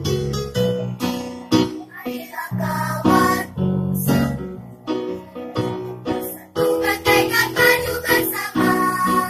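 Children's choir singing an Indonesian patriotic song in unison over electronic keyboard accompaniment, the voices coming in about two seconds in after a short keyboard passage.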